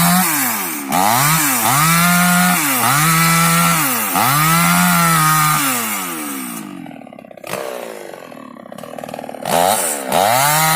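Two-stroke chainsaw run in repeated full-throttle bursts while cutting wood: about four times the engine revs up, holds, then drops back. It eases toward idle about two-thirds of the way through, then revs up again near the end.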